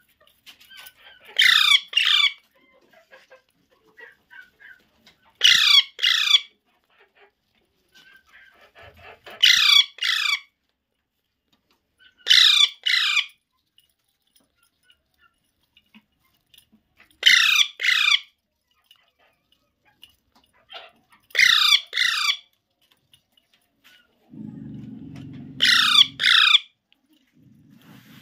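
Alexandrine parakeet giving loud, harsh two-note squawks, each note sweeping down in pitch. The calls come seven times, roughly every four seconds.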